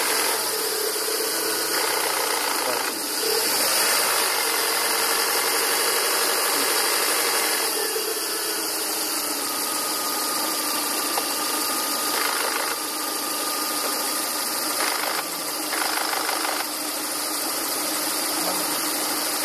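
Volvo V40/S40 1.8-litre four-cylinder petrol engine idling steadily with a rasping noise at idle, a fault the owner cannot place.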